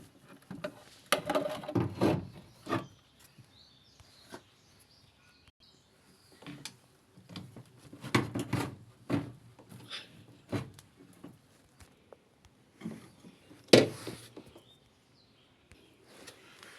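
Irregular knocks, clicks and scrapes of hand work on a washing machine's parts, in clusters about a second in and around eight seconds, with the loudest knock near fourteen seconds.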